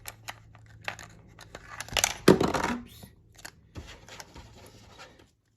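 Tiny plastic miniature food items and the toy fridge being handled: scattered light clicks and rustling, with a louder clatter and rustle about two seconds in.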